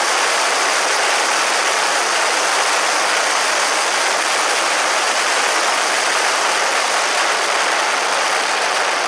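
Steady rush of wind and road noise at a motorcycle-mounted camera while riding at road speed, with no clear engine note over it.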